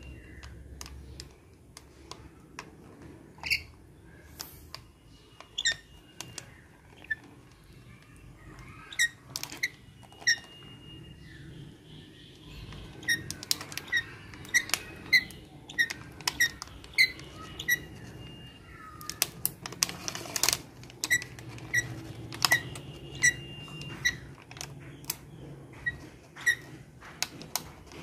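Rainbow lorikeet pecking and nibbling cooked rice from a plastic tub: irregular sharp beak clicks and taps, coming in quick runs in the second half, with a few short high squeaks.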